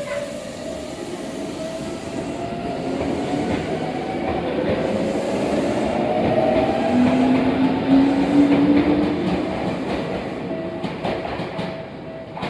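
Electric commuter train of the Tokyu Ikegami Line moving through the station, its motor whine gliding upward in pitch as it gathers speed, over a steady rumble of wheels on rails. It is loudest about eight seconds in and then fades, with a few sharp clicks near the end.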